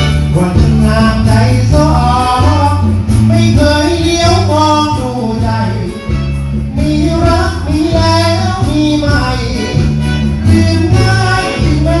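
A male singer sings a Thai luk thung / ramwong song through a PA over a live combo band in a rumba rhythm, with a repeating stepped bass line under the vocal melody.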